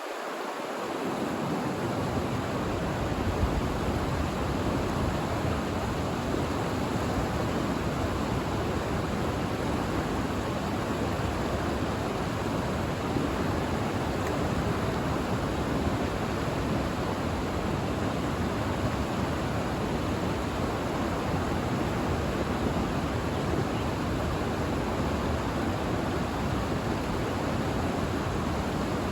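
Steady rushing of river rapids, an even roar of water with no breaks.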